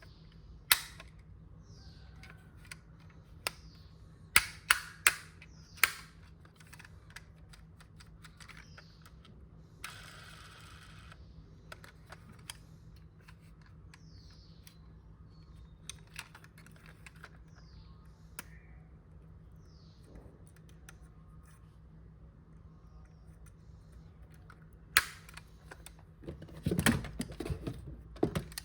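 Sharp plastic clicks and taps from a diecast model car and its packaging being handled, with a short rustle about a third of the way in and a busier run of clicks and rustling near the end.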